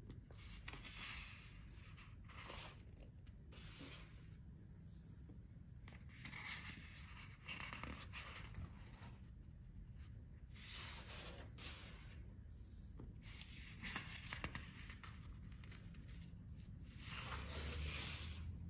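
Sheets of heavy printed paper being handled and slid over one another: a series of soft papery swishes and rustles, the longest and loudest near the end.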